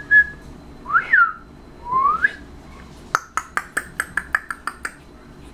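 A person whistling two short glides, the first up then down, the second rising, followed by a quick run of about ten squeaky kissing sounds over two seconds.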